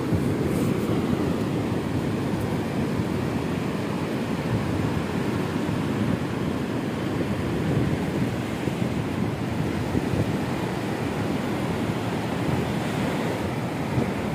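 Steady wash of surf breaking on a sandy beach, with wind rumbling on the microphone.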